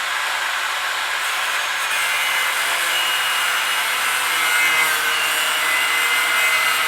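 Cut-off disc on a grinder slicing through the sheet-metal door skin and patch panel in one continuous cut, a steady loud grinding with a faint high whine coming in partway through.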